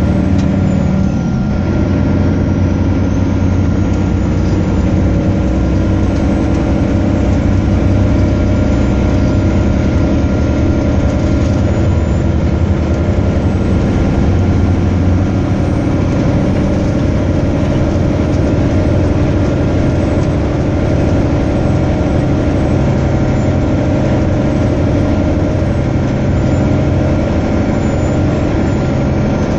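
Volvo DH12D 12.1-litre six-cylinder diesel engine of a Volvo B12BLE bus running at a steady speed, heard from the rear of the passenger cabin, with no revving up or down. A thin steady whine sits above the engine note.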